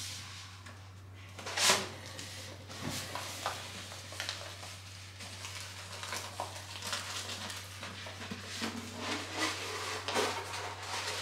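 A roll of paper art prints being unrolled and pressed flat by hand, the paper and tissue interleaving sheets rustling and crinkling in short bursts, with a sharper rustle near the two-second mark and busier rustling towards the end. A steady low hum runs underneath.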